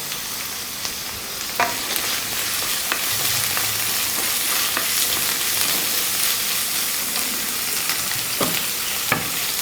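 Chopped shallots and curry leaves sizzling steadily in hot oil in a kadai, with a few light knocks along the way.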